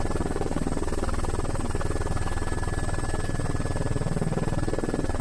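A steady machine-like hum with a fast, even pulse and a couple of faint fixed tones, like a small motor or engine running.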